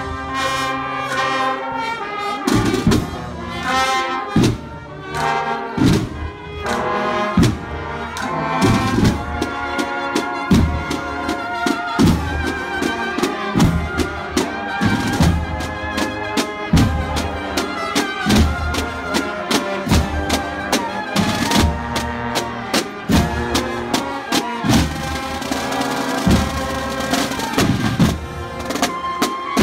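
Brass and drum marching band playing a processional march: trumpets and trombones carry the melody over a steady drum beat.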